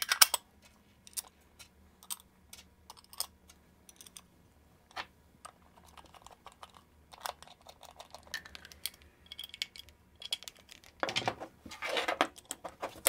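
Small metal clicks and taps as a guitar pedal's lid, screws and a small screwdriver are handled while the Hammond enclosure is screwed shut. A denser run of clicking comes near the end.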